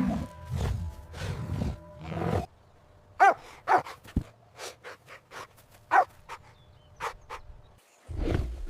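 Recorded animal calls: several low, rumbling roar-like calls, then a string of short, sharp, high yelps and barks, then low rumbling calls again near the end.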